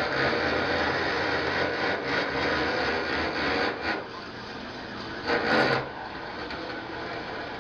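Steady rasping, scraping noise that drops in level about four seconds in, with a short louder burst about five and a half seconds in.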